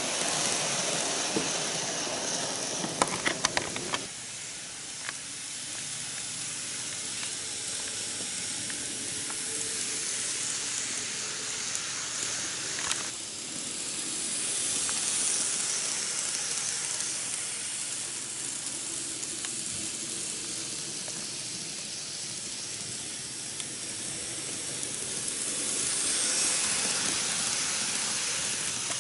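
N-gauge model trains running on KATO Unitrack: a steady hiss of small wheels and motors on the rails. A quick run of clicks comes about three seconds in, and the sound swells louder twice as a train passes close.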